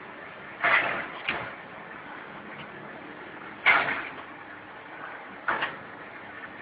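Automatic cracker packaging machine running with a steady background noise, broken by four sudden bursts of clattering noise, two close together near the start, one in the middle and one near the end, each dying away within about half a second.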